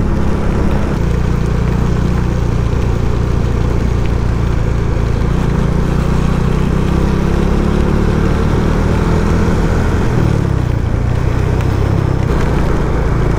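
Motorcycle engine running steadily while riding, its note rising and falling a little, over a steady rush of wind and wet-road noise.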